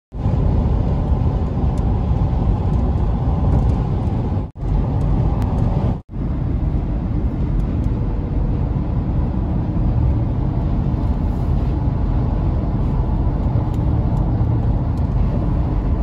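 Steady road noise inside a car cruising on a highway, a low rumble of tyres and engine. The sound cuts out briefly twice, about four and a half and six seconds in.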